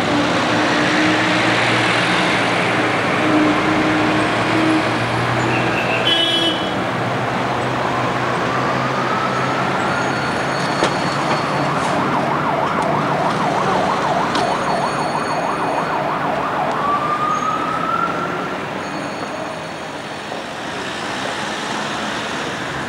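Busy city street traffic: vehicles passing close, with an engine or siren-like whine rising twice and warbling in between.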